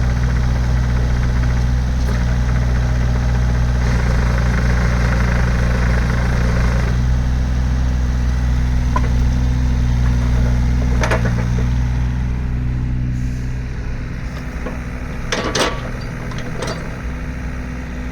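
Takeuchi TB125 mini excavator's diesel engine idling steadily, growing quieter about two-thirds of the way through. A few sharp clicks or knocks come near the end.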